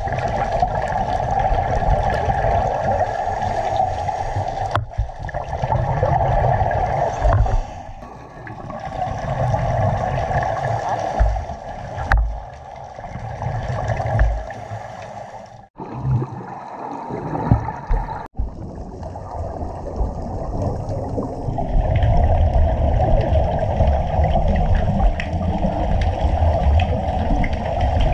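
Water gurgling and rushing around a diver's camera, a steady noisy wash with a rumbling low end, broken by several sudden cuts.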